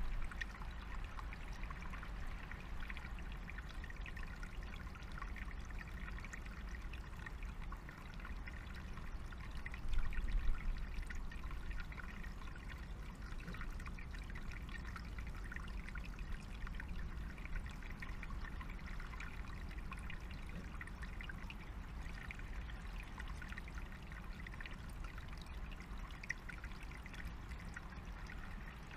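Small woodland stream trickling steadily over stones, with one brief low thump about a third of the way in.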